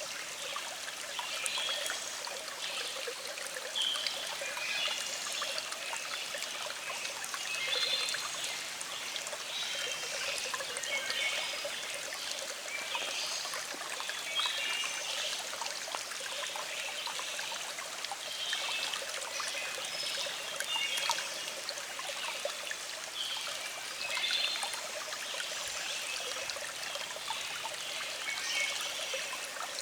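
Small stream flowing steadily, trickling and burbling over rocks.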